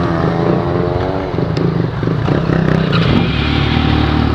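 Motorcycle engines running at fairly steady low revs, with a deeper steady engine note settling in about three seconds in.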